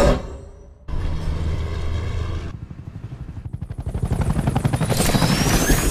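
A helicopter's rotor chopping in a fast, even pulse that grows louder over the second half. It is preceded by the dying tail of a loud blast and a short, steady low rumble.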